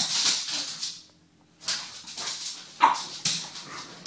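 French bulldogs play-fighting: bursts of rough, noisy breath and scuffling, a brief lull about a second in, and one short pitched yelp just under three seconds in, the loudest sound.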